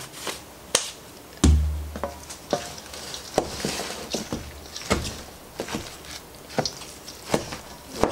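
A wooden spoon stirring a moist cornbread dressing mixture in a stainless steel mixing bowl, scraping and knocking against the bowl at an uneven pace. One heavier thump about a second and a half in.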